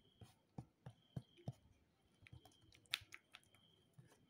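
Sticky slime making faint pops and clicks as it is pulled and peeled away from a surface: a string of short, separate snaps, the loudest about three seconds in.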